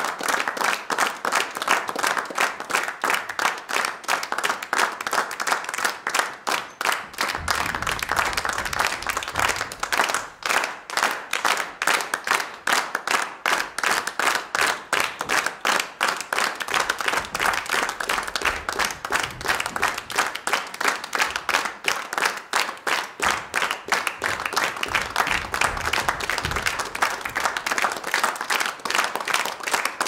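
Large crowd applauding: dense, continuous clapping that holds steady throughout.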